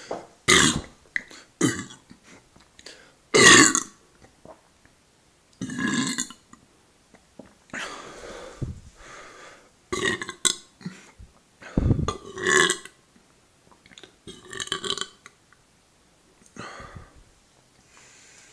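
A person belching repeatedly: a string of about ten burps of varying length, a second or two apart, the loudest about three and a half seconds in. The burps bring up gas from gulped carbonated Coke.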